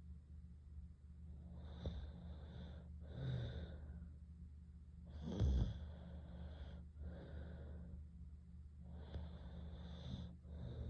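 A sleeping girl breathing heavily and snoring: three slow breaths, each an in-breath followed by an out-breath, about every three and a half seconds. The loudest, a snort, comes about five and a half seconds in. A steady low hum runs underneath.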